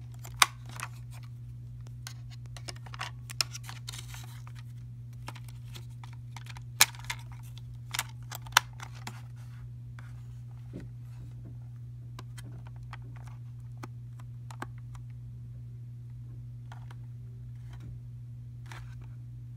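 Handling noise from a plastic pocket cassette radio and its packaging: sharp clicks, taps and scraping, busiest in the first ten seconds, then only a few faint scrapes. A steady low hum runs underneath.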